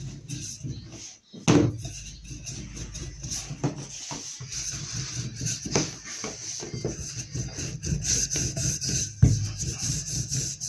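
Wooden rolling pin rolling out fondant on a worktop: a steady low rubbing rumble, with two sharp knocks of the pin on the board, about 1.5 seconds in and about 9 seconds in.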